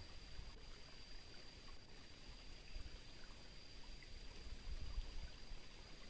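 Faint streamside ambience: a soft, even water hiss with a steady high-pitched tone above it and a few low rumbles, the strongest about five seconds in.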